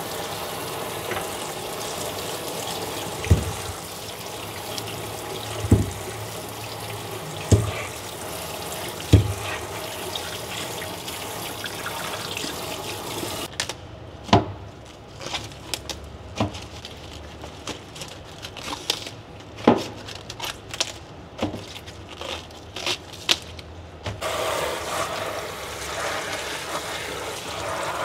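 Kitchen tap water running into a stainless steel sink as tomatoes and romaine lettuce are rinsed by hand, with four dull knocks in the first ten seconds. About halfway the running water stops and there are crisp crackles as the lettuce leaves are handled, then the water runs again near the end.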